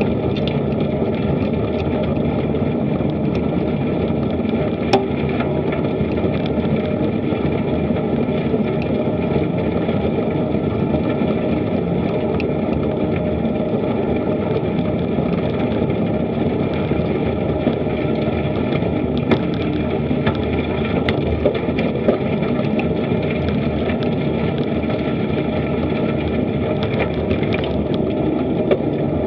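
Steady rush of wind over an action camera's microphone and tyre noise from a bicycle rolling on a paved path, with a few small clicks and rattles.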